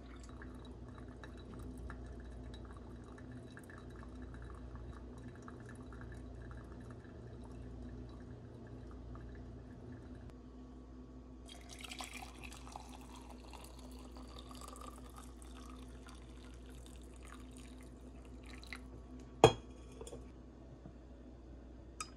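Coffee dripping faintly through a pour-over filter, then brewed coffee poured from a glass carafe into a ceramic mug for several seconds. A single sharp clink, the loudest sound, comes a little after the pour ends, and a smaller click near the end.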